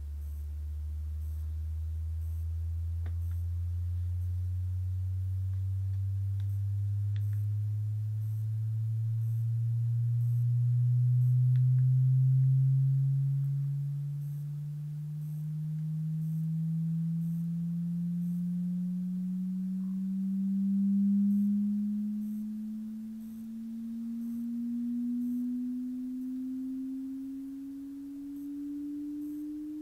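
Sine-wave frequency sweep played through a large computer loudspeaker: a single pure tone rising slowly and steadily in pitch from a deep hum, its loudness swelling and dipping as it climbs.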